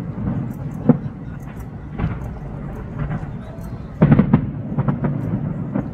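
Distant fireworks display heard from across the harbour: single bangs about one and two seconds in, then a quick cluster of bangs about four seconds in, over a steady low rumble.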